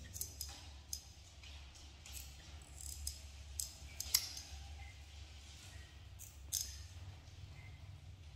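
Nail clippers snipping a monkey's fingernails: a series of short sharp clicks at uneven intervals, the loudest about four seconds in.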